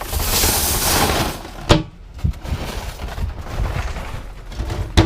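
Stainless steel scrap being unloaded: a loud rushing, scraping noise for about a second and a half, then a sharp metal bang, and another bang near the end.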